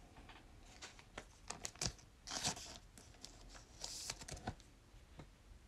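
Quiet handling of a paper trading card: a few light clicks and two short rustles of card stock.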